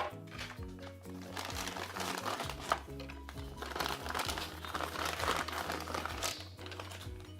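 Packaging crinkling and rustling as toy pieces are handled, over background music with a steady bass line.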